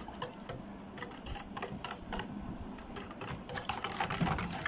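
Wire whisk beating thin batter in a stainless steel bowl, its wires clicking and tapping rapidly and irregularly against the metal, busier near the end.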